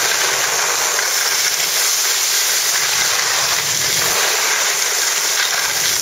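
Steady rush of wind over a camcorder's microphone, mixed with skis running over packed snow, while skiing fast downhill.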